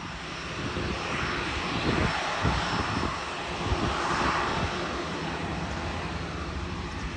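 Twin-engine widebody jet airliner taxiing at low thrust, its engines giving a steady jet hiss with a faint high whine that swells slightly midway as it nears.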